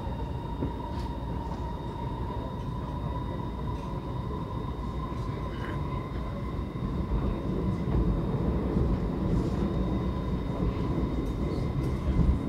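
Cabin noise of an SMRT R151 Movia metro train running: a rumble of wheels on the track with a steady high whine over it, growing louder in the second half.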